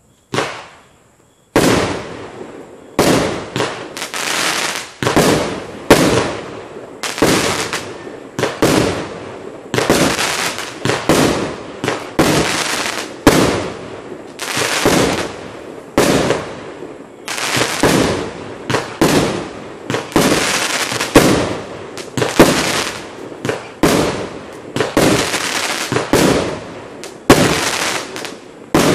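A Block Buster 37-shot firework barrage cake firing shot after shot. One bang comes at the start, then after a short pause a steady run of sharp bangs follows, roughly one a second, each trailing off before the next.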